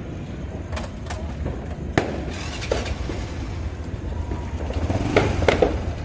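Small underbone motorcycle engine idling with a steady low rumble, with a few sharp cracks about one, two and five seconds in.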